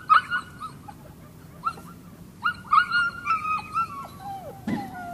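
Border collies yipping and whining in short, high yelps that fall in pitch, bunched in quick clusters, with lower drawn-out whines near the end. A dull thump comes near the end.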